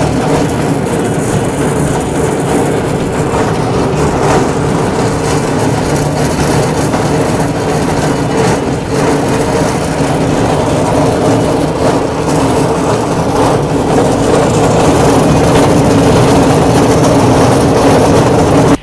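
Powder grinder mill running steadily: a loud, constant machine hum under a dense rushing noise, a little louder in the last few seconds.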